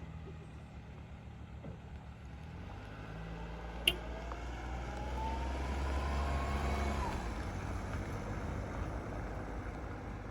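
A vehicle engine running with a low rumble, its pitch rising steadily as it speeds up from about four to seven seconds in, then dropping back. There is a sharp click about four seconds in.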